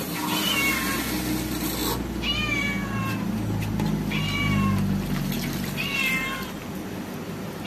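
A cat meowing repeatedly: four high meows about two seconds apart. A hiss runs under the first meow and stops about two seconds in.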